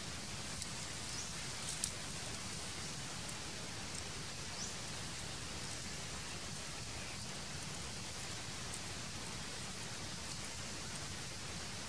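Steady even hiss of background noise, with a few faint sharp ticks in the first few seconds.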